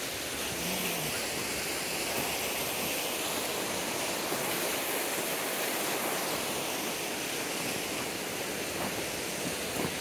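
Mountain stream running over rocks: a steady rushing of water.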